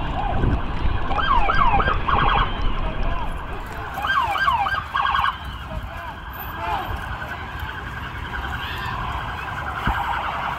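Police car siren sounded in short bursts: a few quick rising-and-falling yelps, then a rapid pulsing tone, twice, with a fainter pulsing tone later on.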